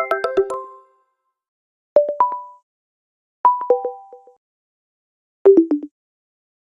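Google Duo app sound effects played one after another: the tail of a chiming jingle, then a short rising two-note chime about two seconds in, a falling three-note chime a moment later, and a quick falling blip near the end.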